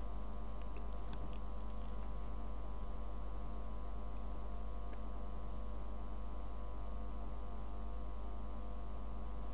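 Steady electrical hum: a strong low drone with a buzz of many stacked steady tones above it and a faint high-pitched whine.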